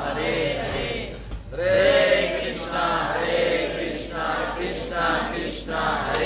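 Devotional chanting by several voices, a man's voice among them, sung in phrases with short breaks between them.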